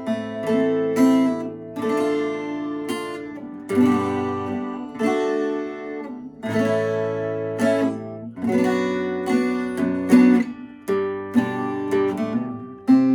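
Fender CD-140SCE 12-string dreadnought acoustic guitar played solo: chords strummed and let ring, a new chord every second or two.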